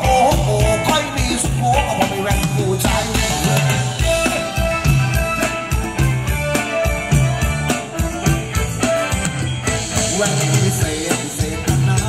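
Live band with drum kit, electric guitars and bass playing upbeat Thai ramwong dance music through a large PA system, with a steady driving beat.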